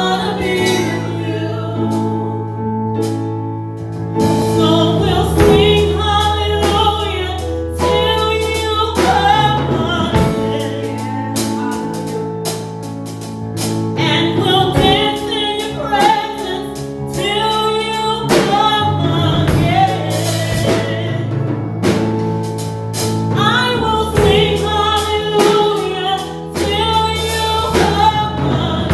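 A woman sings a gospel song into a microphone with a bending, melismatic line, over instrumental accompaniment of long held low chords and light percussion.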